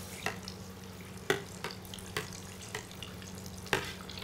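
Breaded potato croquettes deep-frying in a stockpot of oil at 170 °C: a steady bubbling hiss with a few sharp clicks scattered through it, over a low steady hum.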